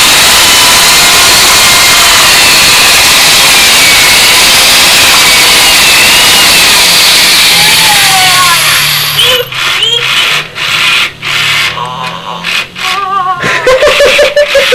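Drill press running, its bit boring into a Furby toy clamped in a vise: a loud, even grinding noise that stops after about eight seconds. Short, wavering pitched sounds with gaps follow it.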